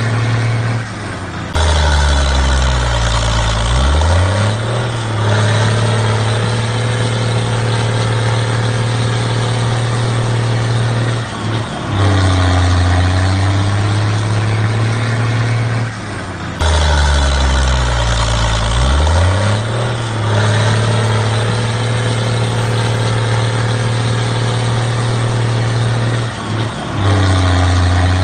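Engine sound running steadily, with the revs dipping and rising a few times; the same stretch repeats about every fifteen seconds, as a looped engine sound track.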